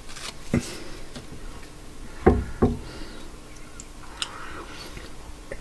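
Pita bread being dipped into a bowl of baba ghanoush: a few soft knocks and handling sounds, one about half a second in and two close together a little after two seconds in.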